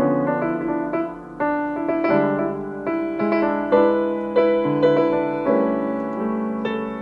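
Piano playing a slow passage of chords and single notes, each struck and left to ring.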